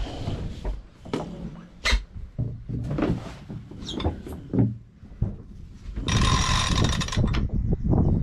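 Sailboat deck gear and lines being handled, with scattered knocks and short squeaks and a brief whistling squeak about four seconds in. About six seconds in comes a loud rushing hiss lasting about a second, and low wind rumble on the microphone runs underneath.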